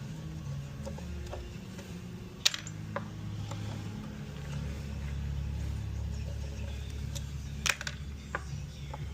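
A steady low hum with a few sharp clicks or knocks, the loudest about two and a half seconds in and again near the end, from hand work taking apart a wooden table.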